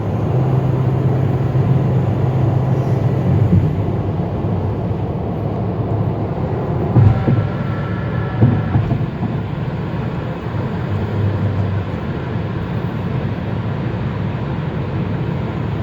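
Steady road and engine noise inside a moving car's cabin, with two short knocks or bumps about halfway through.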